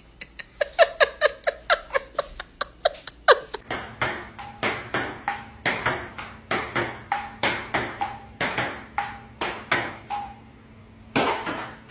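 A table-tennis ball bouncing on the table at an even pace of about three bounces a second, each a sharp click with a short ringing ping. Before it comes a quicker run of short ringing ticks.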